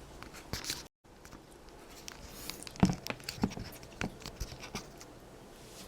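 Scattered small clicks and taps close to the microphone, the loudest a little under three seconds in, after a brief total cut-out of the sound about a second in.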